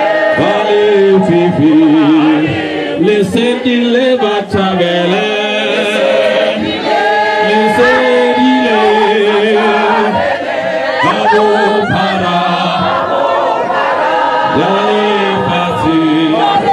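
Crowd singing a Setswana song together in chorus, with long held notes that waver in pitch.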